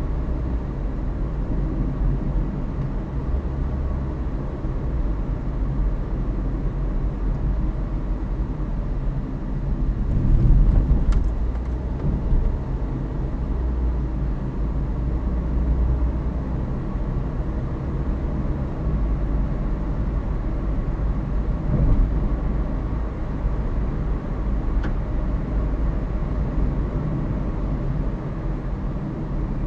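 Car cabin noise while driving at city speeds: a steady low rumble of road and engine, picked up by the windscreen-mounted dash cam's built-in microphone, with a brief louder swell about ten seconds in.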